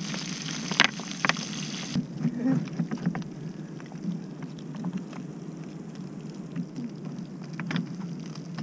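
Fish frying in oil in a pan over an open wood fire, sizzling with a few sharp clicks. About two seconds in the sizzling cuts off abruptly, leaving a low rumble of wind on the microphone with occasional small clicks.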